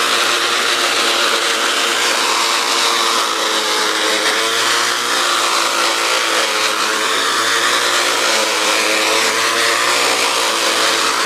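Electric motor of a Black & Decker string trimmer, mounted on a homemade wheeled mini-mower deck, running steadily at full speed with a slightly wavering whine as its spinning line cuts through grass and weeds.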